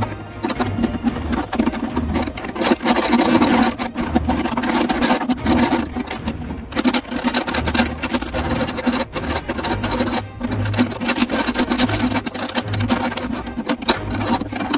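Close handling noise of fingers turning a nut onto a threaded chrome sink overflow fitting: dense rubbing and scraping of skin and metal threads. Background music with a soft bass beat runs underneath.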